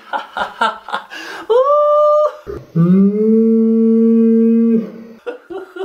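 A man's gloating, sung-out voice: a few short sounds, then a short high falsetto "ooh" about a second and a half in. Then comes a long steady lower "ohh" held for about two seconds, the loudest part.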